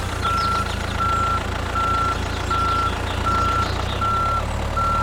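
Vehicle reversing alarm beeping at a steady pace, seven even beeps at one pitch, over the steady low rumble of a running engine.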